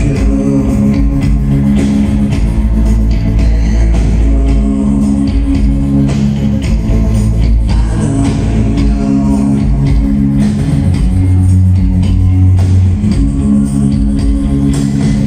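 Rock band playing live: guitars, bass guitar and drum kit with a man singing, heard from the audience in a large concert hall.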